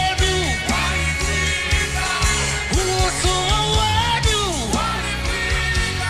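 Live gospel praise-and-worship music: a band playing a steady beat with bass and drums, with singing over it.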